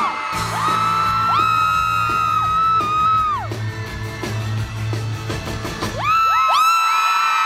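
Crowd of fans screaming in many overlapping, high, sustained shrieks over a band's music with a low bass line and drum beat. The music stops about six seconds in, and the screaming swells louder.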